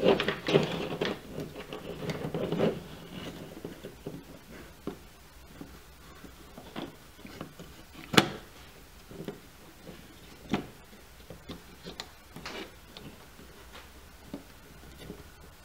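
A Raspberry Pi board and its cables being pushed into a clear acrylic case. Rustling and handling at first, then scattered sharp plastic clicks and knocks, the loudest about eight seconds in.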